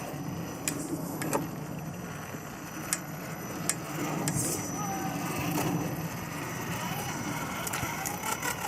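Lathe's electric motor running steadily with a low hum, with a few sharp clicks or knocks.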